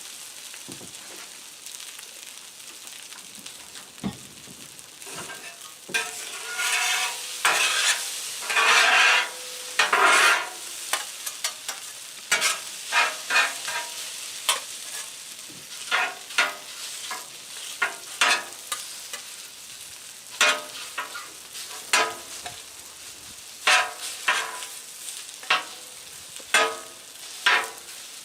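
Chicken and fried rice sizzling steadily on a Blackstone flat-top griddle. Metal spatulas scrape and stir the food across the steel surface in repeated strokes. The strokes start about six seconds in and are longest and loudest for the next few seconds, then come as quicker, shorter scrapes.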